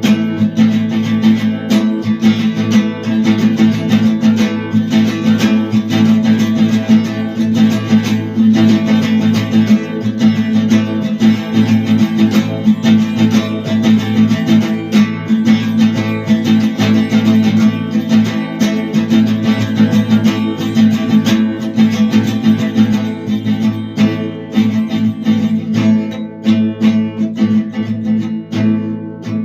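Music: an acoustic guitar strummed quickly and steadily.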